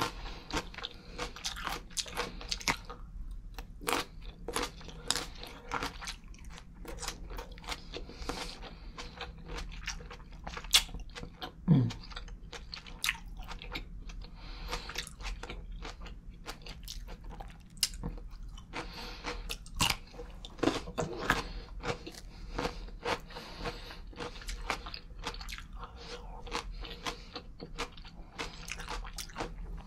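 Close-miked chewing of green grapes and a pickle: wet crunching, biting and mouth clicks throughout, with a brief low hum near the middle.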